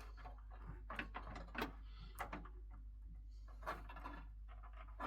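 A few faint, scattered plastic clicks and rattles as a SATA data cable is handled and plugged into a 3.5-inch hard drive, over a steady low hum.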